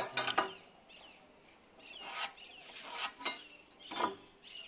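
A few knocks of a wooden door-frame rail being handled near the start, then several short scratchy pencil strokes marking lines on the wood against a steel try square.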